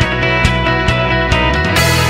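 Background music with a steady beat of about two hits a second, closing on a cymbal-like crash and a held chord near the end.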